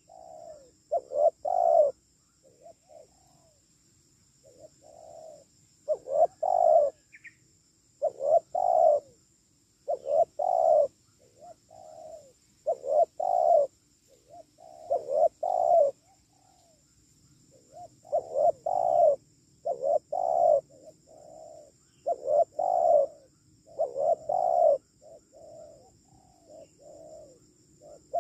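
Spotted dove cooing: short phrases of two or three low coos, repeated every second or two with brief pauses. A faint steady high hiss sits behind them.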